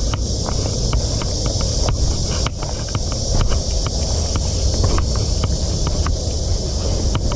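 Wind buffeting the microphone with a low rumble, over a steady high hiss and scattered light clicks.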